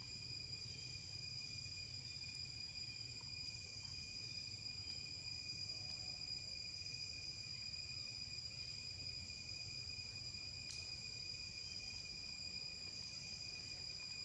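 Insects trilling steadily in forest: a continuous high-pitched drone that swells faintly every second or two, over a low background rumble. One brief click comes about two-thirds of the way through.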